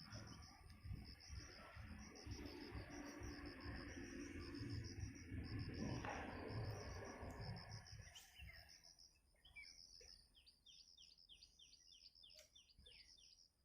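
Faint insect chirping, a fast even pulsing trill that keeps going, with a quick series of short falling bird-like calls near the end. Low rumbling noise underlies the first half and dies away about eight seconds in.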